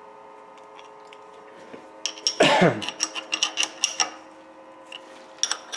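Quick irregular metallic clicks and light clatter from handling metal setup gear, with a steady machine hum behind. About two and a half seconds in there is a short sound that falls in pitch.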